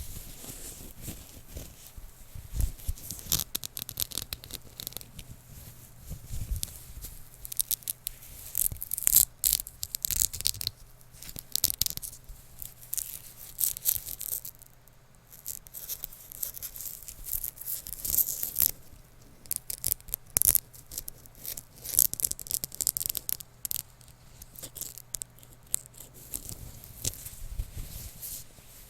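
Rough material scratched and rubbed right against the microphone: irregular rasping strokes, some quick and some drawn out, with small clicks in between.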